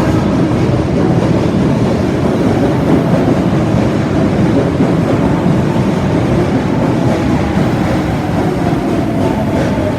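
An Osaka Metro Tanimachi Line subway train running, a loud steady rumble of wheels on rail. A faint whine comes in near the end.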